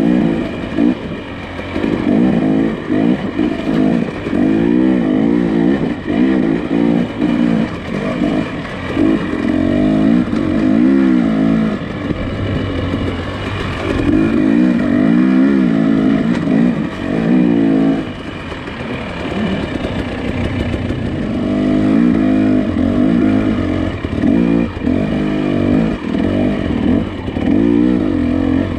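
Nissan Pathfinder engine working along a rough off-road trail. The revs rise and fall in repeated surges a few seconds long, with some rattling over the ground.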